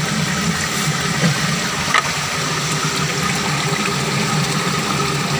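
Steady rush of flowing river water, with a short click about two seconds in.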